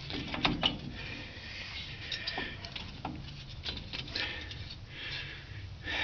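Scattered light clicks and clinks of hand tools working on drum brake hardware, a few sharp ticks close together about half a second in and others spread through the rest.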